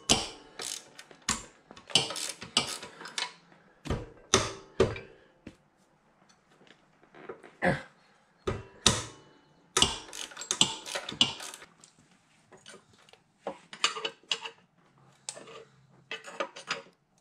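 Ratchet wrench clicking in short runs and metal tools clinking as the cylinder head bolts of a mini bike engine are undone to pull the head.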